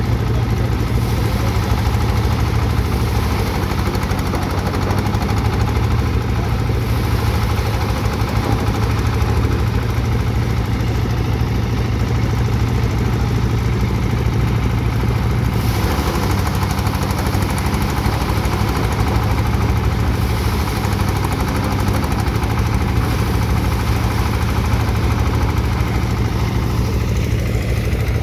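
Engine-driven paddy thresher running steadily while threshing rice, its engine and drum making a continuous low rumble with a rapid flutter.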